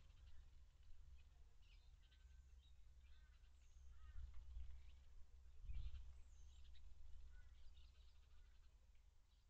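Faint birds chirping and twittering in short scattered calls over a low rumble that swells briefly a little past halfway; otherwise near silence.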